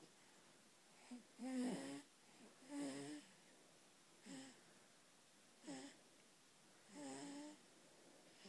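Snoring on the way to sleep: about six short, wheezy, squeaky sounds on the breaths, a second or so apart, their pitch bending up and down, the loudest about two seconds in.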